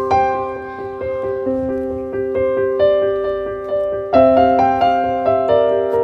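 Background piano music: notes and chords struck at an unhurried pace, each ringing and fading, with a fuller, louder chord coming in about four seconds in.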